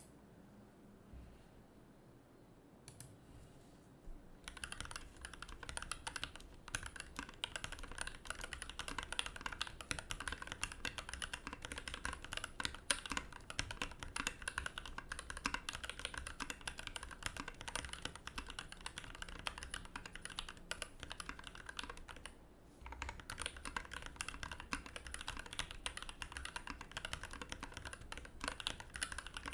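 Continuous typing on a 60% custom mechanical keyboard with lubed Pinoko 65g linear switches on an aluminium plate and PBT keycaps. A few lone key presses come first, steady fast typing starts about four seconds in, and it stops briefly about three-quarters of the way through before going on.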